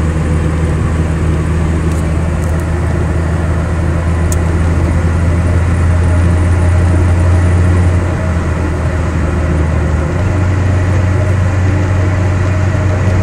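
A 2003 Mitsubishi Lancer ES's 2.0-litre SOHC four-cylinder engine and road noise while driving, heard from inside the car: a steady low drone whose pitch shifts slightly about eight seconds in and again at ten. The engine, which is logging a cylinder 2 misfire, is running smoothly at this moment, with no sputtering or bogging.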